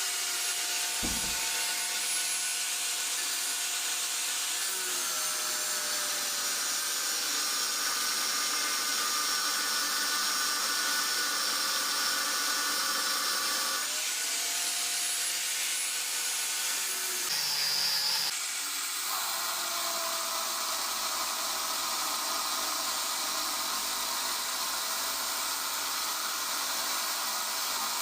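Angle grinder with a cutting disc cutting lengthwise through steel railway track: a steady high whine with hiss. The motor's pitch sags and recovers a few times as the disc loads up in the long cut.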